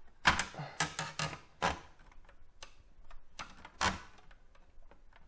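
A handful of sharp, irregularly spaced plastic clicks and knocks as the internal power supply of an Xbox One S is worked loose and lifted out of the console after its retaining clip is released.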